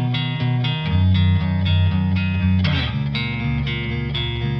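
Background music led by plucked guitar notes.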